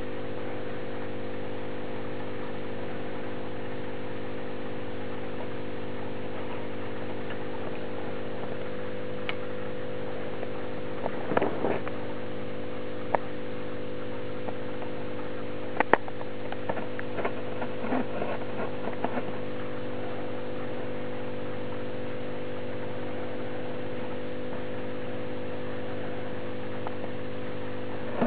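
A steady electrical hum with many evenly spaced overtones, and a few light clicks and taps scattered through the middle stretch.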